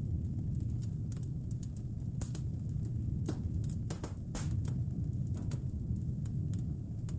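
Wood fire crackling in a fireplace, with frequent irregular sharp snaps and pops, over a steady low rumble of blizzard wind.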